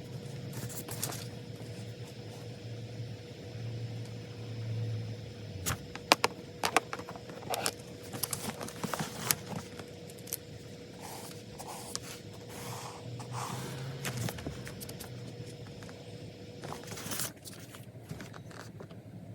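Small desk sounds of someone studying: scattered clicks and scratchy scrapes, such as a pen, paper and stationery being handled, clustered in the middle and again near the end, over a steady low hum.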